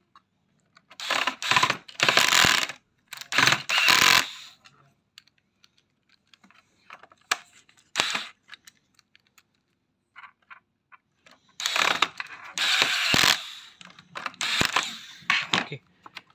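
Hard plastic parts of a robot vacuum clattering and scraping as its drive-wheel module is handled and pressed back into the chassis. There are a few short bursts in the first four seconds, one sharp click about eight seconds in, and a longer spell of rattling near the end.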